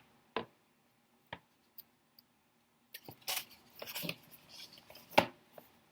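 Scattered small clicks, then a few seconds of soft rustling with more clicks, the sharpest click just after the rustling: the sound of a picture book's pages being handled and turned.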